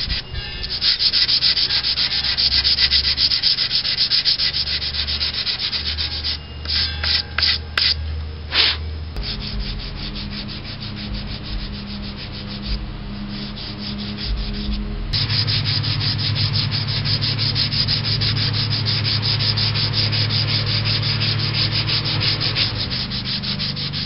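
Hand-sanding spot filler off a primed, Bondo-filled helmet with 150-grit sandpaper on a small block, in fast short back-and-forth strokes. The strokes break into a few separate rubs with short pauses around a third of the way in, then carry on steadily.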